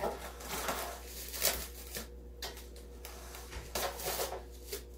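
A box of plastic wrap being fetched and handled: scattered rustling and crinkling with a few light knocks.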